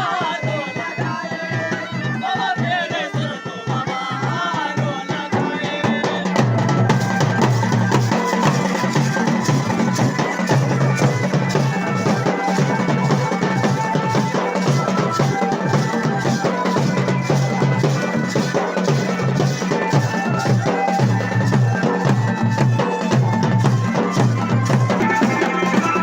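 Garhwali wedding band playing: a wavering reed wind melody, joined about six seconds in by loud, fast dhol-damau drumming over a steady low drone.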